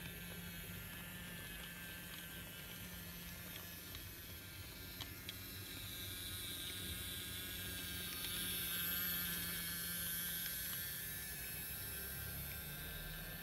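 Small battery-powered motor of a BRIO Old Steam Engine toy train whirring steadily as it pulls wagons along the track, a thin whine of several tones over a low hum. There are a couple of light clicks about five seconds in, and the sound gets louder for a few seconds past the middle.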